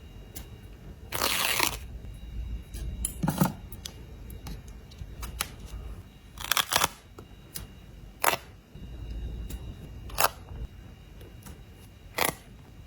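Paper stickers being peeled off their backing sheet and pressed down: a short crackly peel about a second in, then scattered sharp taps and clicks every second or two.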